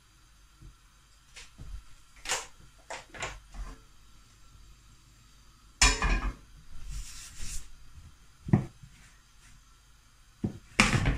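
Kitchen handling sounds: light clicks and knocks as oil is poured from a plastic bottle into a frying pan, a loud clatter about six seconds in as the bottle is set back down on the worktop, and a few knocks near the end as a rolling pin is put to the dough on the counter.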